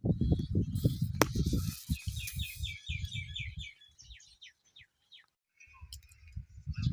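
Bird chirping in quick series of short repeated notes, over loud low rumbling thuds that stop for a while past the middle and return near the end; a single sharp click about a second in.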